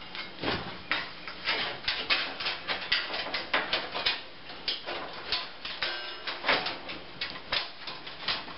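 Hands working inside an electric range's sheet-metal cabinet, pulling burner wires up through: an irregular run of clicks, knocks and scrapes, several a second, as the wires and metal parts are handled.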